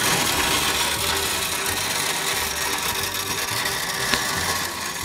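Wood pellets pouring from a paper bag into a pellet smoker's metal hopper: a steady rushing rattle of many small pellets hitting the hopper and each other.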